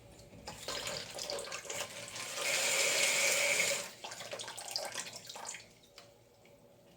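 Water rushing out of a toilet's open supply line as the shutoff valve is turned on to flush the line clear before the new fill valve is connected. It starts about half a second in, runs hardest for a second or so in the middle, then drops and stops before the end.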